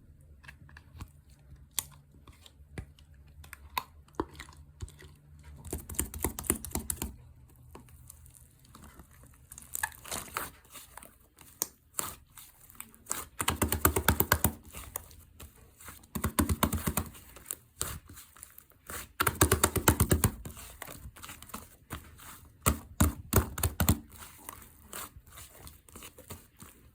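Slime being squished and worked by hand, giving many sticky clicks and crackles, with several louder bouts of crackling lasting a second or two each.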